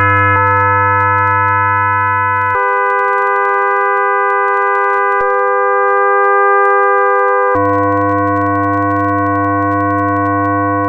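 Experimental electronic music: a dense chord of steady, sustained electronic tones over a low hum. The chord changes abruptly about two and a half seconds in and again about five seconds later, and the low hum drops out for the middle stretch.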